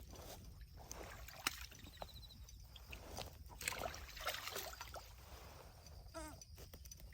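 Faint splashing and sloshing of water with a few light knocks, as a just-caught fish is handled and let go into the lake.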